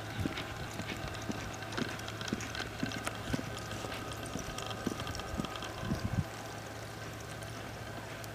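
Quarter horse gelding loping on soft arena dirt: irregular, muffled hoofbeats over a steady low hum.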